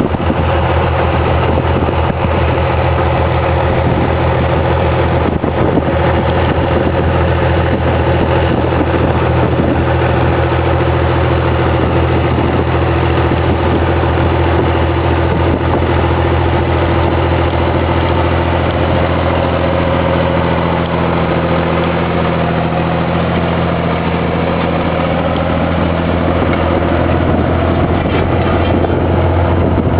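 Vintage John Deere tractor engine running steadily while pulling a cultivator through tilled soil.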